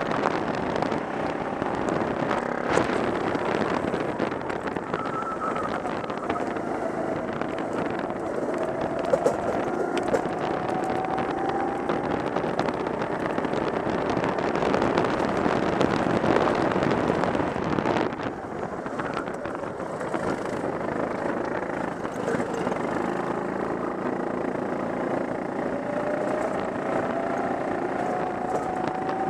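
Go-kart engine heard from the driver's seat, running hard around a track. Its pitch climbs twice as it accelerates, and it eases off briefly a little past halfway.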